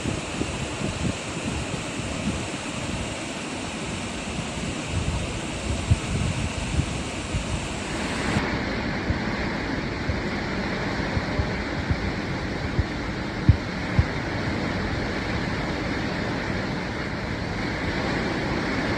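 Hurricane wind blowing hard as a steady rushing noise, with gusts buffeting the microphone in low thumps. The sound changes abruptly about eight seconds in, as at a cut to another clip of the storm.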